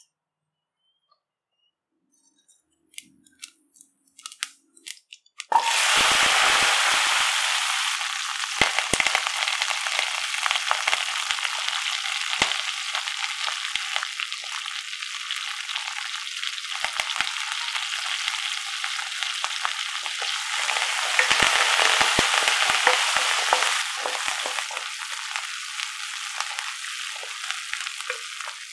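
A few light clicks of seeds and dal dropped into oil, then about five seconds in a loud, steady sizzle starts: whole shallots, green chillies and curry leaves frying in hot oil with mustard seeds, cumin and urad dal, with the ticks of a spatula stirring. The sizzle grows louder for a few seconds about three-quarters of the way through.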